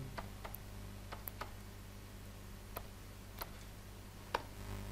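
Computer keyboard being typed on: scattered, irregular light keystroke clicks over a steady low electrical hum.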